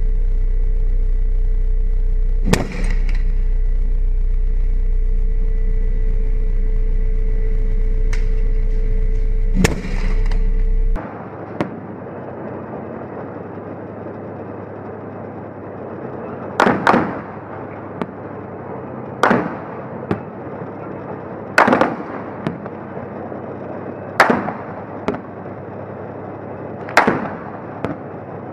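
Armoured vehicle's engine running with a steady drone, broken twice by sharp gunshot bangs; about eleven seconds in the drone stops suddenly, and single gunshots follow about every two to three seconds, each with a short echo.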